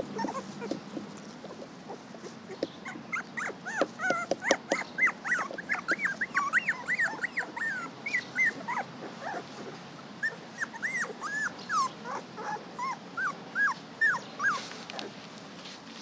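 Young puppies whining in a rapid run of short, high cries that rise and fall, starting about three seconds in, with a brief break about midway.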